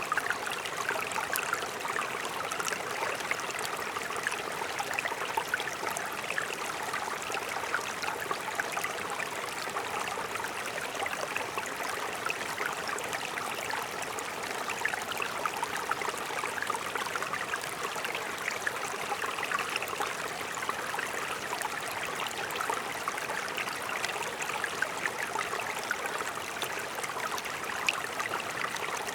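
Mountain stream flowing over rocks: a steady rush of water with fine splashing and gurgling.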